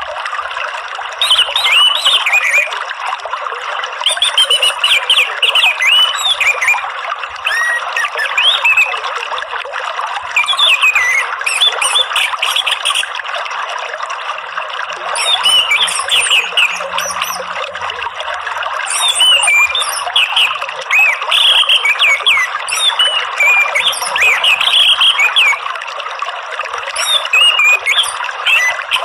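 Orange-headed thrush singing bursts of quick, varied whistled phrases with short pauses, over a steady sound of running water.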